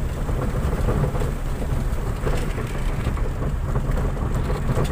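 Steady low rumble of a vehicle driving over a rough, wet dirt track, heard from inside, with scattered rattles and knocks.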